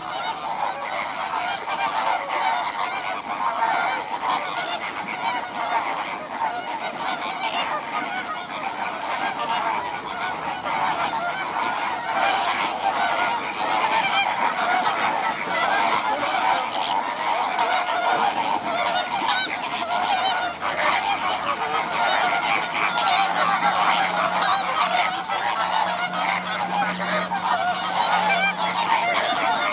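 A large flock of greater flamingos calling continuously, a dense chatter of many overlapping calls.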